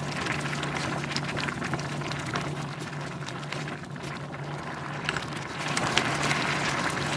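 Rice, mushrooms and water boiling hard in an uncovered Staub cast-iron cocotte, a dense sputter of small popping bubbles over a steady low hum. This is the stage of cooking pot rice where the water boils down before the heat is lowered and the lid goes on.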